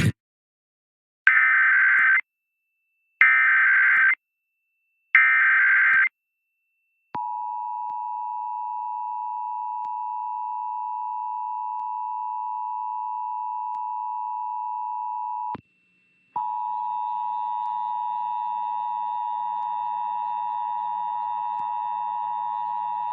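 Emergency Alert System test tones: three short bursts of the SAME digital header's warbling data tones, about two seconds apart. Then the steady two-tone EAS attention signal sounds for about eight seconds, breaks off, and starts again about a second later.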